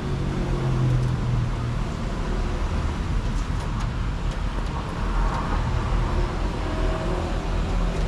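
Steady low background rumble with no clear single event.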